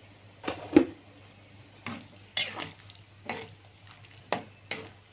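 A metal ladle stirring boiling soup in a metal wok, scraping and knocking against the pan in about eight short, irregular strokes.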